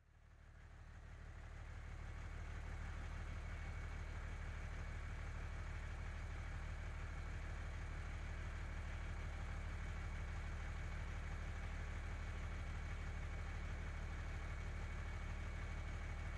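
Engine idling steadily, swelling up over the first couple of seconds, with a deep even running note and a thin steady high whine above it.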